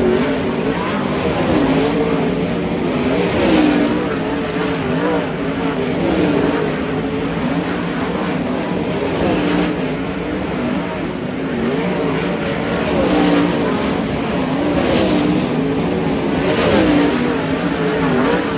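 Several winged 410 sprint cars racing on a dirt oval. Their methanol V8 engines rise and fall in pitch through the corners, overlapping, and swell louder every second or two as cars pass.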